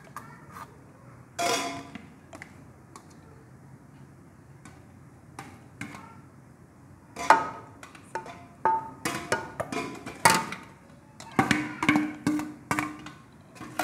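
A plate scooping rice clinks, knocks and scrapes against steel cooking pots. The hits are sparse at first and come quickly from about halfway through, some of them ringing briefly.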